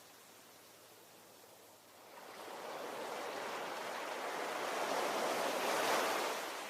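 Ocean waves: a quiet lull, then a wave builds about two seconds in, breaks in a rushing wash near the end and begins to recede.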